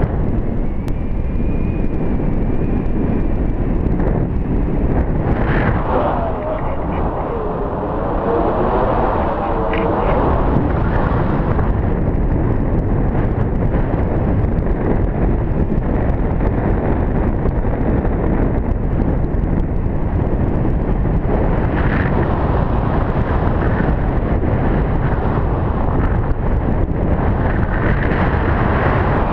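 Wind rushing over the microphone of a camera flying with a tandem paraglider: a steady, loud buffeting noise, heaviest in the low end.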